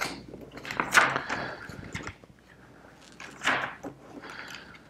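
Pages of a paper instruction booklet being turned, rustling in short swishes, the loudest about a second in and another around three and a half seconds.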